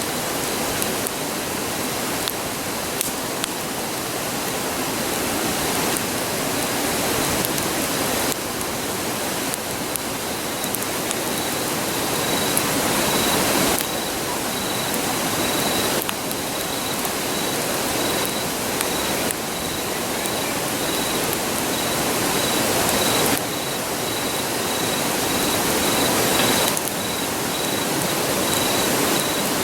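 River rushing steadily, with faint scattered crackles from a wood campfire. From about eleven seconds in, a high, rapidly pulsing insect trill joins it.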